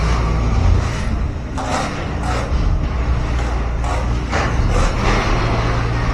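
Truck engine running with a steady low rumble, with several short, sharper noises over it.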